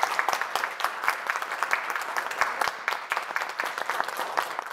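Applause from a roomful of people, many hands clapping steadily, cut off sharply at the end.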